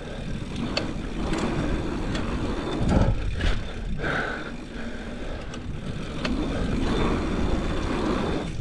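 Mountain bike being ridden over dirt: steady rolling noise from the tyres and bike, with a couple of knocks about three and four seconds in.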